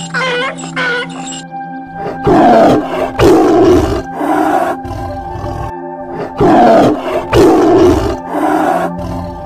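Tiger roaring in two bouts, each a run of three heavy roars falling in pitch, the second bout starting about four seconds after the first, over steady background music.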